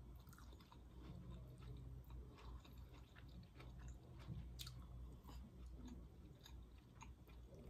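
Faint, close chewing and wet mouth sounds of someone eating soft noodles and tender chicken, with scattered small clicks.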